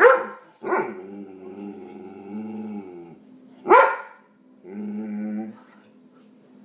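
A dog barking and making odd, long, wavering vocal noises. There is a bark at the start, then a drawn-out wavering noise of about two seconds, a sharp bark about halfway through, and a second, shorter wavering noise.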